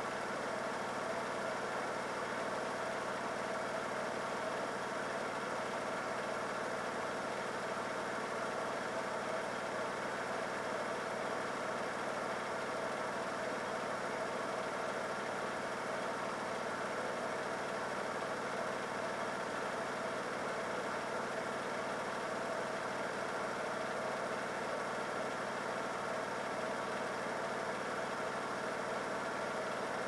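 Bosch Logixx WAS32461GB washing machine in its final spin, set to 1200 rpm: the motor and drum run steadily at high speed with an even whine and hum.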